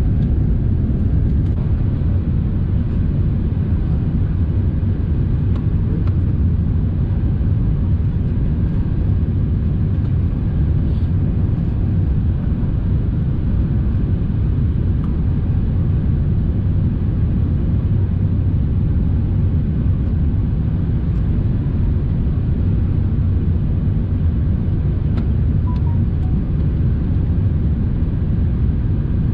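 Steady low rumble of engines and rushing air heard inside the cabin of an Airbus A380 descending on approach to land.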